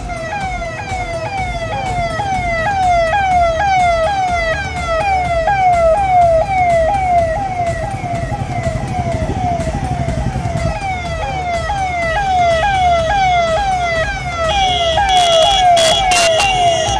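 Roof-mounted electronic siren on a convoy SUV sounding a rapid repeating falling wail, a couple of times a second, over the low rumble of the vehicles' engines. Further steady tones join near the end.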